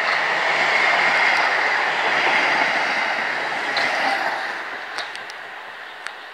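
A South Western Railway Class 450 Desiro electric multiple unit, two units coupled, passing close by: a steady rush of wheel and rail noise that fades away over the last couple of seconds as the rear coach goes by. A few sharp clicks near the end.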